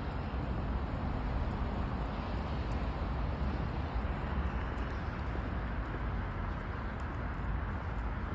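Footsteps on stone paving over a steady low outdoor rumble and hiss.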